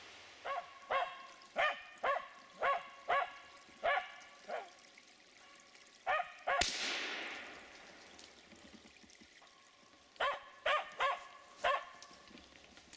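Finnish spitz giving its treeing bark, a steady run of sharp barks about two a second, the sign that it is holding a game bird up in a tree. About six seconds in there is a single sharp, loud bang with a long echoing tail, and near the end the dog barks four more times.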